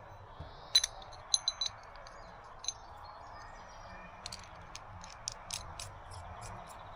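Small metal pieces clinking: a few sharp ringing clinks about a second in, one more near three seconds, then a run of lighter ticks, over a steady low hiss.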